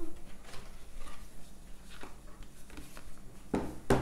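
Game cards being handled: scattered light rustles and clicks of cards, then two sharp knocks close together near the end.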